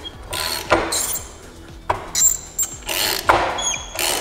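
A hand ratchet is worked in repeated strokes on the steel forcing screw of a bearing-separator gear puller, pulling the countershaft gear off a Nissan CD009 transmission shaft. A few short metallic pings come about three and a half seconds in.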